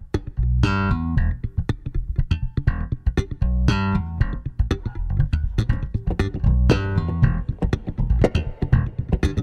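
Two basses playing an up-tempo instrumental groove together, a dense run of sharply plucked notes over strong low bass lines.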